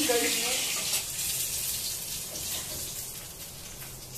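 Fish deep-frying in hot mustard oil in a kadhai: a hissing sizzle with scattered crackling pops that gradually dies down.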